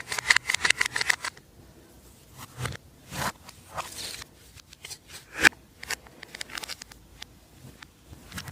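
Slime being squished and worked by hand: a quick run of sticky clicks for about the first second, then scattered pops and crackles.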